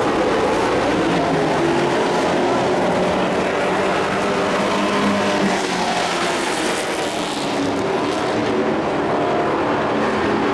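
Dirt-track race trucks' engines running hard as the field laps the oval, a steady engine din that eases slightly past the middle.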